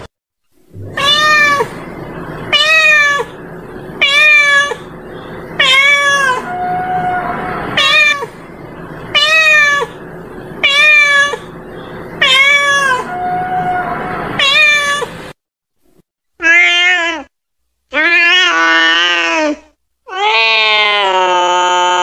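Domestic cats meowing: about ten short, repeated meows roughly every second and a half. They stop suddenly, and after a short gap come two longer calls and then a long, drawn-out yowl near the end.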